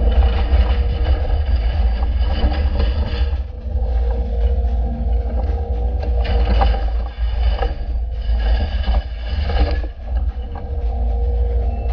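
Excavator's diesel engine running under load, with a deep steady rumble and a steady whine, as the machine works. Louder grinding, scraping stretches come and go, most strongly about halfway through and again near the end.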